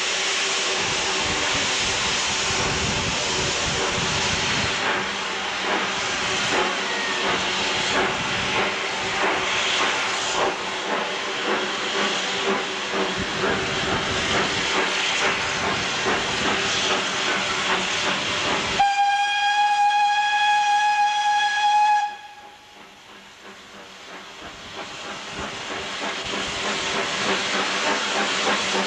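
Steam tank locomotive No. 90 hissing steam steadily. About two-thirds of the way through it gives one long, steady whistle blast of about three seconds that cuts off suddenly. The hiss drops away after the whistle and then builds back up.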